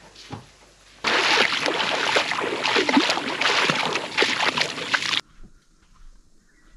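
Loud, irregular splashing and sloshing of water that starts suddenly about a second in and cuts off after about four seconds.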